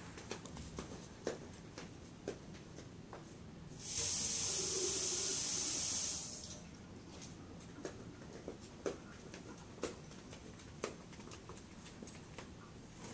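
Water running from a tap for about two and a half seconds midway, a steady hiss, with scattered light clicks and knocks before and after.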